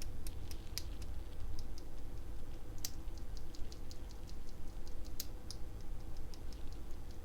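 Loose Gateron Yellow linear mechanical keyboard switches, one lubed and one unlubed, pressed repeatedly by hand for a sound comparison: runs of light clicky presses, with two sharper clacks about three and five seconds in, over a steady low hum.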